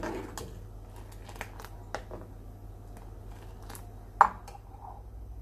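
Steel ladle knocking and scraping against a stainless steel saucepan while stirring tea, a few light clicks and one sharp clink about four seconds in.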